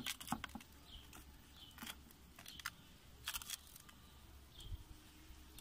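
Scattered short clicks and scrapes of a pizza peel knocking against the firebrick oven floor as a pizza stuck to it is jiggled off. A few faint bird chirps in between.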